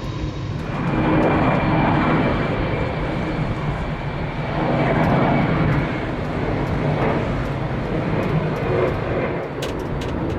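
Jet engines of a Boeing 747-400F freighter running: a broad roar that swells and eases in waves, with a thin, steady high whine over it from about a second in until about six seconds.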